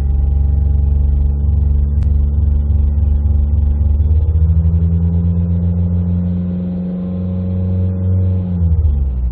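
2008 Fiat Bravo's engine running, with the revs raised about four seconds in, held, and let fall back near the end. The rattle under the dashboard has been fixed, and no rattle is heard.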